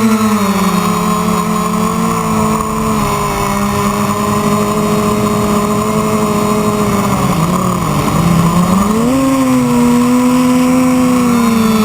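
Quadcopter's electric motors and propellers humming steadily, the pitch moving with throttle: it drops slightly in the first second, sags and wobbles about seven to eight seconds in, then rises again about nine seconds in.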